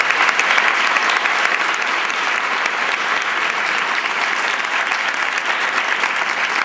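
Large audience applauding: many hands clapping in a steady, dense patter.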